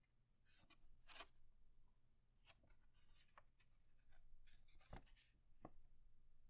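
Faint rustling and crinkling of a sheet of paper being folded and creased by hand, with a crisper rustle about a second in and a few light clicks and taps of the paper later on.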